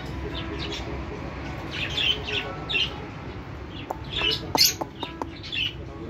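A baby parakeet calling: a series of short, high calls, coming in quick bunches from about two seconds in and loudest a little past the middle.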